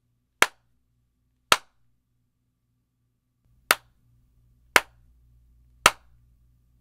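Single sharp hand claps, each followed by a short tail of room reverberation. There are two claps about a second apart, then after a gap of about two seconds three more at about one-second intervals. They are clapped to test how much studio reverb each microphone picks up.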